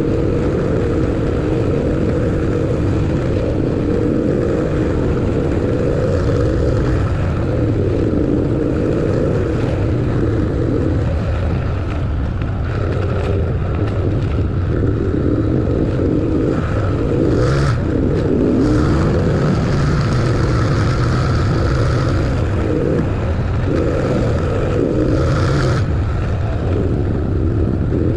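Motor vehicle being driven, with steady engine and road noise. Two brief louder rushes of noise come about two-thirds of the way through and again near the end.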